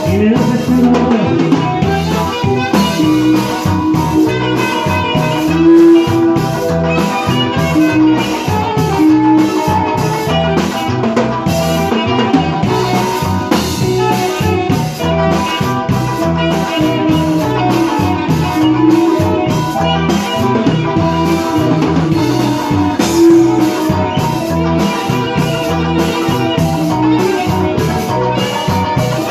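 Music with a drum kit keeping a steady, even beat under held melodic notes.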